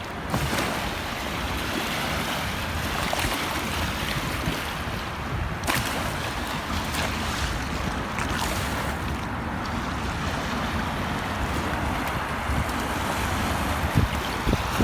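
Steady wind blowing across the microphone, with a short sharp click about six seconds in and another near the end.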